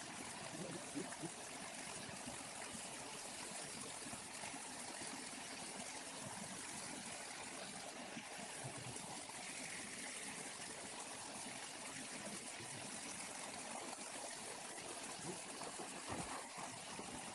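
Water of a waterfall falling and flowing steadily, a continuous even wash of water sound.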